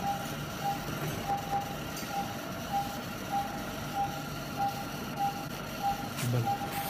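Operating-room patient monitor beeping: short pulse-oximeter tones of one steady pitch, evenly spaced at about 100 a minute, following the patient's heartbeat.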